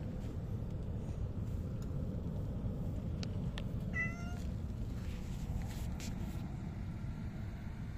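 Silver tabby cat giving one short, slightly rising meow about halfway through, over steady low background noise.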